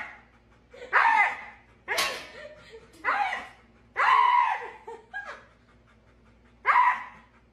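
Siberian husky vocalizing in a string of short whining, howl-like calls, each bending up and down in pitch, about six in all with short pauses between them.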